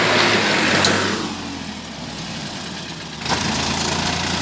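Diesel tractor engine working hard while pulling a heavily loaded soil trolley. It eases off and drops in pitch about a second in, then revs up again about three seconds in.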